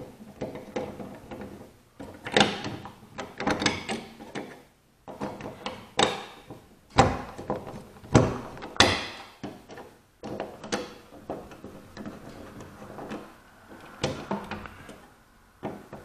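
A multi-bit Phillips screwdriver is turning out a light switch's long, fully threaded mounting screws from a metal electrical box. It makes irregular metallic clicks and scrapes, with short pauses as the grip is reset.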